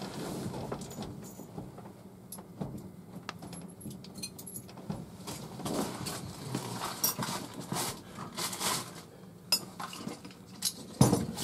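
Loose metal bolts clinking and rattling as they are picked out and handled, in a series of irregular short clinks, with a louder knock near the end.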